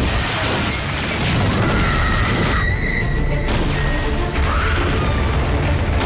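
Music mixed with the boom of an explosion and the crash of flying debris from a fire.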